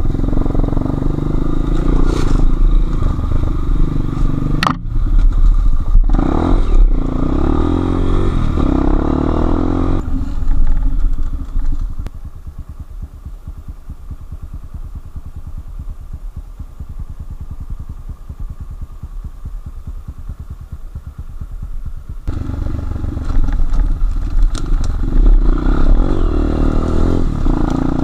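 Enduro motorcycle engine running hard with clattering, then dropping to a quieter, slow, even beat about twelve seconds in for roughly ten seconds before picking up again.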